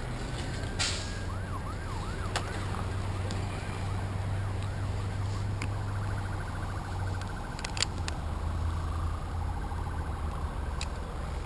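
Emergency-vehicle siren sweeping up and down in quick repeated arcs, switching to a faster warble about six seconds in. A few sharp metallic clicks of climbing hardware sound now and then.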